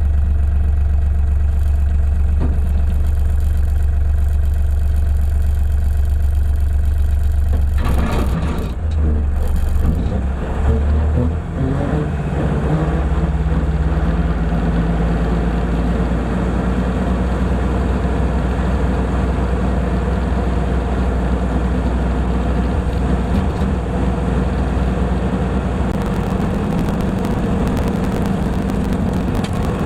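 LS MT240e compact diesel tractor running under load with its rotary brush-hog cutter, a loud steady low drone. About ten seconds in the sound is briefly disturbed, then settles at a slightly higher pitch.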